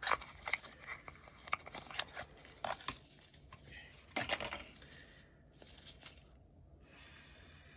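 Small packaged nail products being handled with gloved hands: a run of sharp clicks, taps and crinkles, the loudest a short rustle about four seconds in, thinning out after about five seconds.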